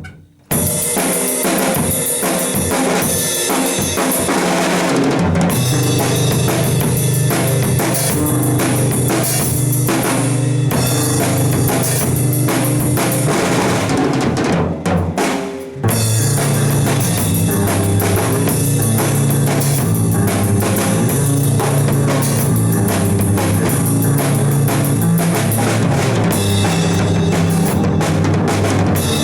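A band jamming: a drum kit with kick and snare playing alongside other instruments, with low notes moving underneath. The playing breaks off briefly about halfway and starts up again.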